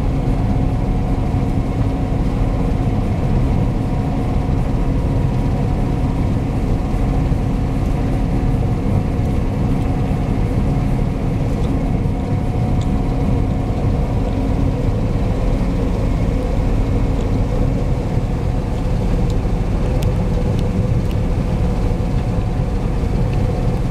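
John Deere T670i Hillmaster combine harvester running steadily while harvesting oilseed rape. It gives a loud, unchanging drone with several held tones from the engine and threshing machinery.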